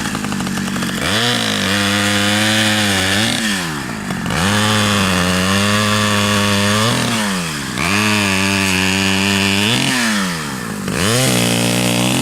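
Petrol chainsaw revving up and holding at high speed for a couple of seconds, then dropping back toward idle, about four times over, as when working through dead elm wood.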